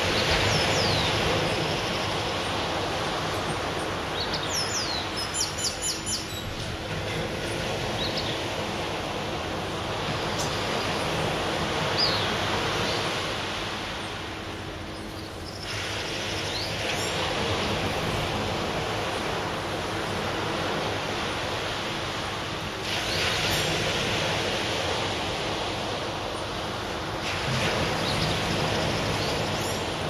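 Surf breaking on a sandy beach, a steady wash that swells and eases every few seconds. Birds chirp briefly over it, most clearly about five seconds in.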